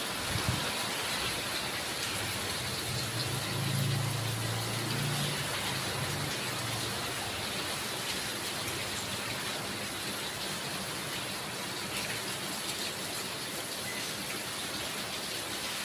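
Steady heavy rain falling, an even hiss, with a low rumble that swells and fades from about three to seven seconds in.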